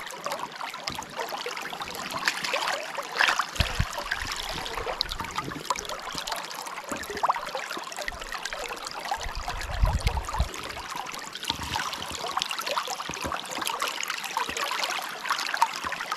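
Shallow river current running and trickling close by, with a few low bumps from handling, the biggest about ten seconds in, and small splashes as a hand goes into the water near the end.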